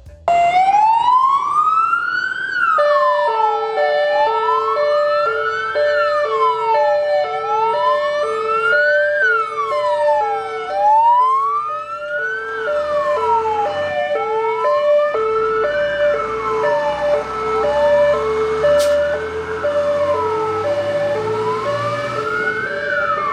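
Fire truck siren wailing, sweeping up and down in pitch about every three seconds. A few seconds in, a second siren joins, switching rapidly back and forth between two tones.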